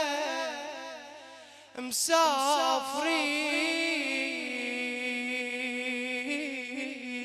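A radood's male voice singing an unaccompanied Shia lament, with ornamented turns of pitch. The voice breaks off briefly about two seconds in, then holds one long wavering note.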